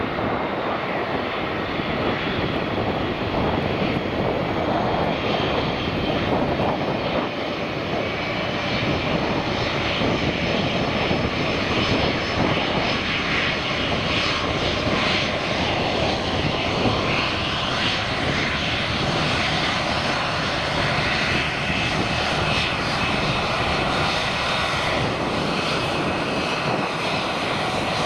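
Jet engines of an Airbus A320-232, its twin IAE V2500 turbofans, running as the airliner taxis past: a steady, even engine noise with a faint high whine.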